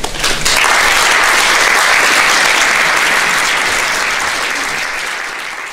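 Audience applauding at the close of a talk: steady clapping that swells in about half a second in and starts to fade near the end.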